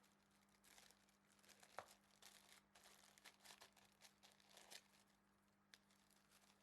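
Faint crinkling and rustling of packaging being handled: a run of irregular small crackles, busiest in the middle, over a faint steady hum.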